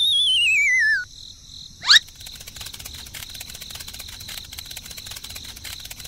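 Cartoon-style sound effects: a warbling whistle sliding down in pitch for about a second, then a quick rising whoosh about two seconds in, the loudest moment, followed by steady cricket chirping.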